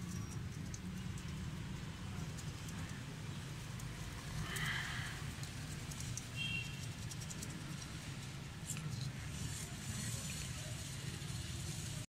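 Goats feeding at bowls on a concrete floor: scattered light clicks and knocks of muzzles against the bowls and hooves shifting, over a steady low rumble, with two brief high squeaks about four and a half and six and a half seconds in.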